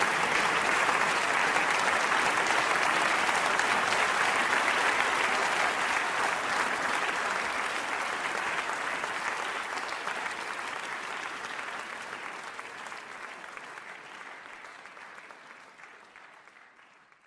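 Crowd applause, steady at first, then fading out gradually over the last ten seconds or so.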